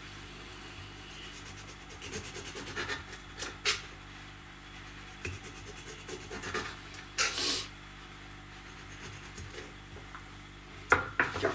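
Kitchen knife cutting an orange on a wooden cutting board: a few short knocks and scrapes of the blade through the peel and onto the board, the longest about seven seconds in, over a faint steady hum.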